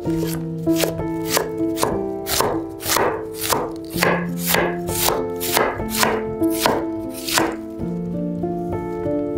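A cleaver-style kitchen knife shredding a half head of green cabbage on a wooden cutting board: a steady run of crisp cuts, about three a second, that stops near the end. Background music plays throughout.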